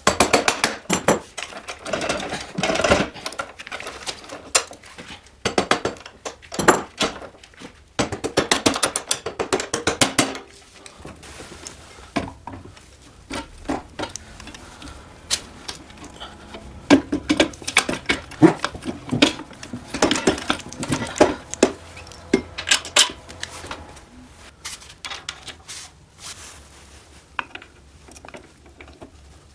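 Metal clinks, knocks and rattles of parts and tools during moped reassembly: first at the rear wheel axle and hub, then as the engine is set into the steel frame. Some clinks come in quick clustered runs.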